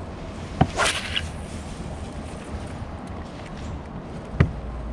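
Steady outdoor wind-and-water noise on the microphone, with a sharp knock, a short swishing whoosh just after it, and another sharp knock near the end.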